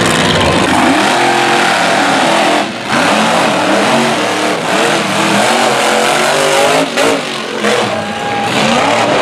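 Monster truck engines revving hard, several at once, their pitch rising and falling as the trucks race and jump. The engine noise drops briefly twice, about three seconds in and about seven seconds in.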